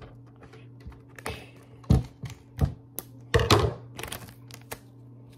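Clear packing tape being pulled off its roll, cut with scissors and handled: about half a dozen sharp knocks and short rasps, the longest about halfway through, over a steady low hum.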